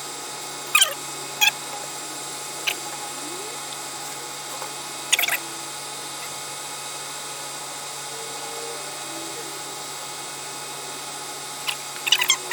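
A steady machine-like hum, with a few sharp clicks or knocks about a second in, twice more in the next few seconds, and a quick run of them near the end.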